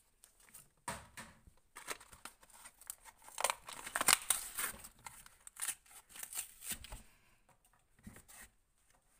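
A Hot Wheels blister pack being torn open by hand: the cardboard backing ripping and the plastic bubble crackling in irregular bursts, trailing off near the end.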